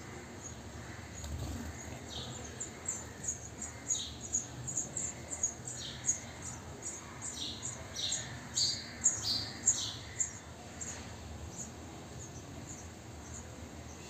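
House sparrow nestlings begging from inside a nest box: a rapid run of thin, high cheeps, several a second, that grows loudest in the middle and then fades.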